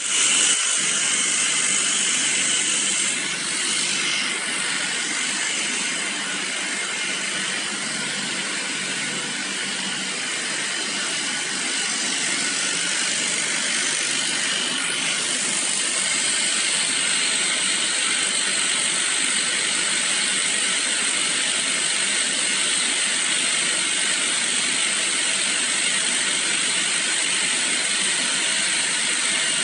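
Small portable electric pressure-test pump running steadily, pushing water into a PVC layflat hose as the line pressure climbs during a burst test.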